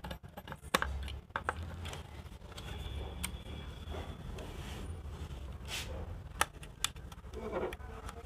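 Sharp light clicks and handling noise of a wire spring retaining clip and an HS1 halogen bulb being fitted into a plastic motorcycle headlight housing; a handful of separate clicks, over a low steady rumble.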